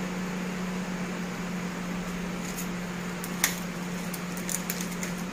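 A steady low hum from room equipment, at one constant pitch with a soft hiss. A few faint clicks sit on top of it, the sharpest about three and a half seconds in.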